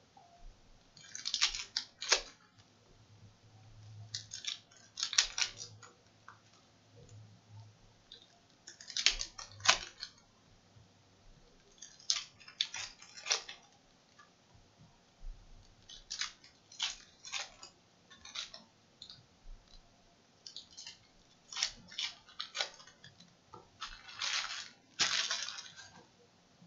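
Trading cards being handled and set down onto a stack: irregular short rustles and slaps of card stock.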